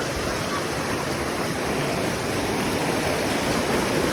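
Steady rush of water from a waterfall or fast stream.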